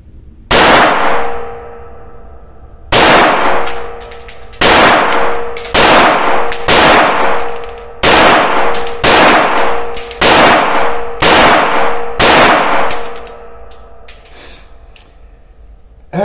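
Ruger Mark IV .22 LR semi-automatic pistol fired about ten times in slow, aimed succession. The first shots are spaced two to three seconds apart, and the rest come about one a second. Each sharp crack is followed by a short ringing decay in the small booth.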